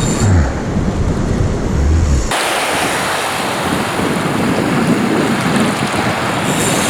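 Wind buffeting the microphone over lake water washing at the shore, a steady noisy rush with no clear tone. About two seconds in it changes abruptly to a brighter, hissier rush.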